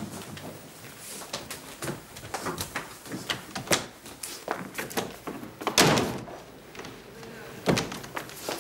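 Scattered footsteps and wooden knocks of people moving about, with a heavy door bang about six seconds in and another thump near the end.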